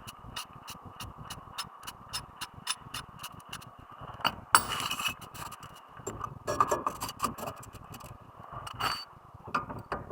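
Metal tools and brake parts clinking and clicking during hands-on work on the front brakes: a run of light clicks, several a second, a louder clank about four and a half seconds in, then more clinks.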